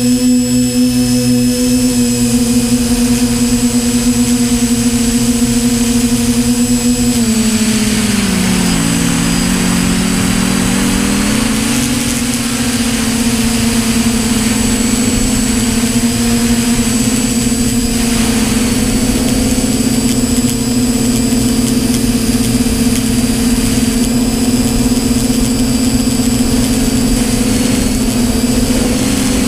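Multirotor drone's motors and propellers humming steadily with a faint high whine, the pitch sagging and then climbing back about eight to eleven seconds in as the motors change speed.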